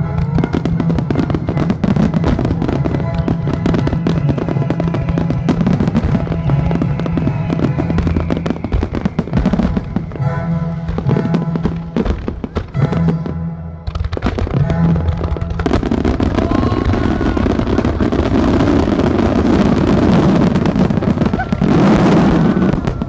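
A fireworks starmine barrage: shells bursting in rapid succession over orchestral show music. About two-thirds of the way through, the music gives way to a dense wash of bangs and crackling that builds to a loud finale just before the end.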